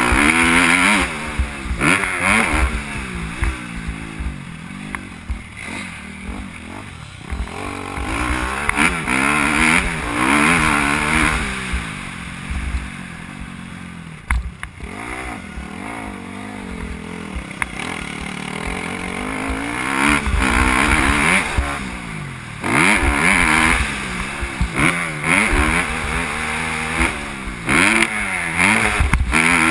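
Motocross bike's engine heard on board, revving up and falling back over and over as the rider accelerates, shifts and backs off around the track, over a low rumble and knocks from the rough ground.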